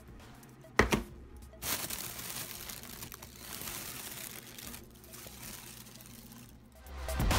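Plastic bag and plastic meal containers crinkling as they are handled, with a sharp click about a second in. Background music comes back in near the end.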